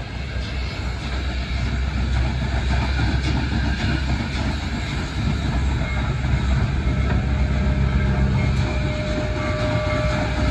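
The Big Boy excursion train rolling past, a steady low rumble of locomotive and rail cars on the track, with a faint thin tone near the end.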